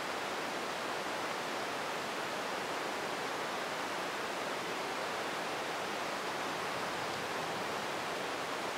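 Heavy rain pouring down, a dense, steady hiss that holds at the same level throughout.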